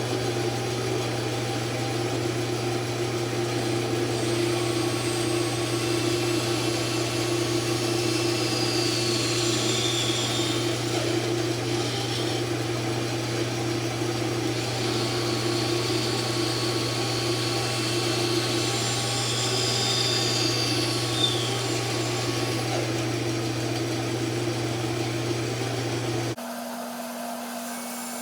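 Band saw running steadily with a loud hum while cutting notches into a wooden board. Near the end the sound drops abruptly to a quieter, different steady hum.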